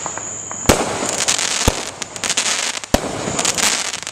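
Consumer fireworks going off: three sharp bangs about a second apart, each followed by a dense crackle.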